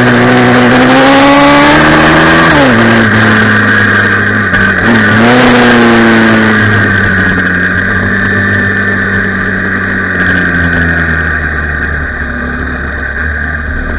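Dream 160 pit bike's single-cylinder four-stroke engine: revving up, the throttle shut about two and a half seconds in, a short rev near five seconds, then the revs falling steadily as the bike slows down. Wind rushes over the onboard microphone.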